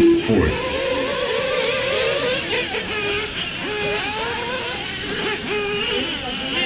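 Several 1/8-scale RC off-road buggies racing, their small engines revving up and down and overlapping. A short steady tone sounds right at the start.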